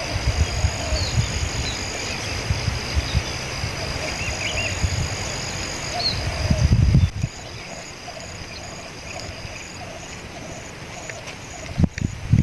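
Spotted dove cooing over and over, a persistent wild caller, with small birds chirping and a steady high tone in the background. A low rumble runs under it until about halfway, then stops.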